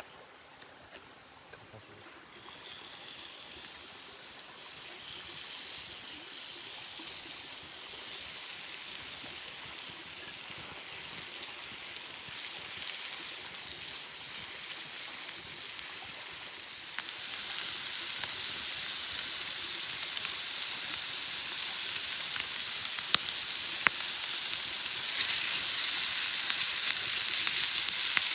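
Food sizzling in a pan over a campfire, getting louder in steps about midway and again near the end, with a few sharp pops.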